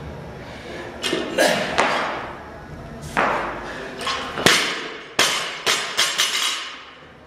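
A 165 lb barbell loaded with rubber bumper plates, knocking and rattling as it is cleaned and jerked, then dropped from overhead onto the rubber gym floor about four and a half seconds in. It bounces several times, the hits coming closer together and fading as it settles.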